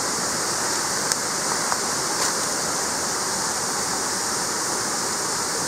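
Steady rushing water of a rainforest stream under a constant high hiss, with a couple of faint clicks about one and two seconds in.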